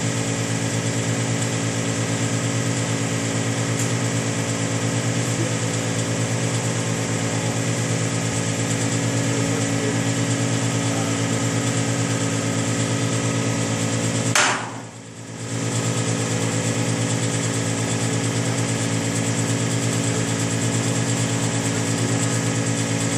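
A motor running steadily with an even, rapid mechanical pulse over a constant hum. About fourteen seconds in there is a sharp click, and the sound briefly drops away for about a second before it resumes.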